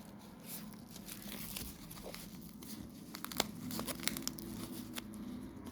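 Packaging crinkling and crackling as it is handled, with scattered sharp clicks at irregular intervals.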